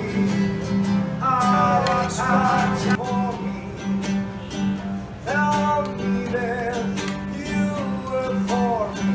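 A man singing to his own acoustic guitar, strumming steadily; his voice comes in short phrases between stretches of guitar.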